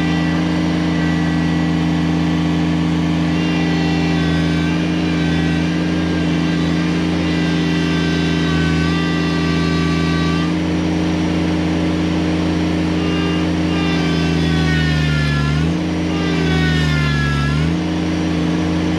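Kubota BX23S subcompact tractor's three-cylinder diesel running hard under heavy load as it strains against a tow rope on a fallen tree, with a higher whine over the engine note. Twice near the end the engine pitch sags and recovers as it bogs down: the tractor has met its match and cannot pull the tree free.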